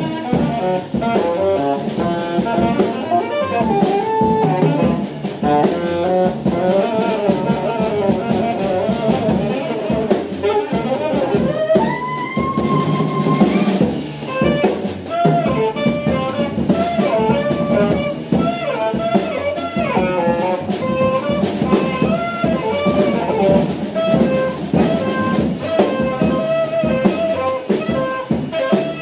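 Live jazz saxophone trio playing: saxophone lines over a busy drum kit with guitar, including one long held note about twelve seconds in.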